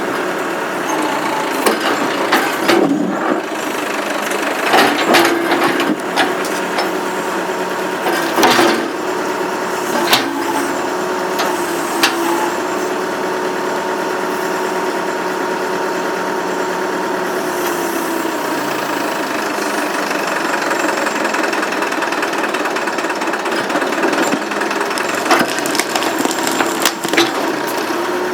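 Massey Ferguson 50A backhoe running steadily, with a held whine that falls away about eighteen seconds in. Scattered sharp knocks and cracks come from the backhoe digging the stump, several in the first half and a cluster near the end.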